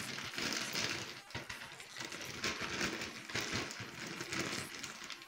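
Crinkling and rustling from something being handled, in uneven bursts.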